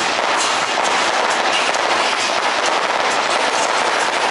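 Fireworks crackling in a fast, dense, continuous run of small pops with no single big bang.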